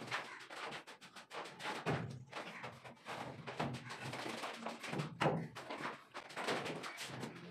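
Wooden door frame being handled and shifted into place, giving a series of irregular knocks and thuds of timber.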